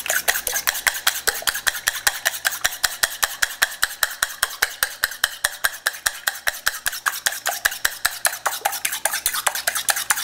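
Egg mixture being beaten by hand in a stainless steel mixing bowl, the utensil clicking against the metal side in a quick, even rhythm of about six strokes a second.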